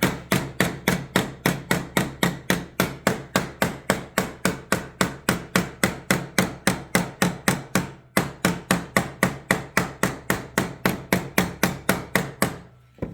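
Hammer striking a sheet-metal patch piece in a fast, steady run of about four blows a second, forming a sharp bend along its edge. The blows break off briefly about eight seconds in, resume, and stop shortly before the end.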